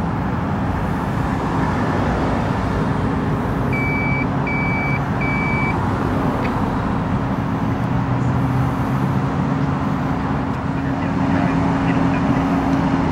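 Fire engine's motor running steadily with a constant low hum. Three short, even, high-pitched electronic beeps come about four seconds in.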